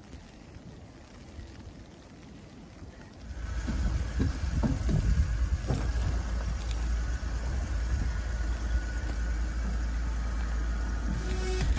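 Land Rover LR3 SUV rolling slowly down a car trailer's ramps, its engine running with a steady low rumble that comes in about three seconds in, with a few brief creaks soon after.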